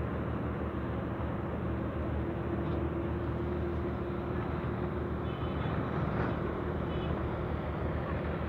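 A steady engine drone, level and unbroken, under wind rushing on the microphone.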